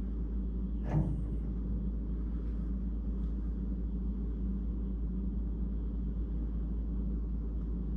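A steady low hum with a single sharp click about a second in.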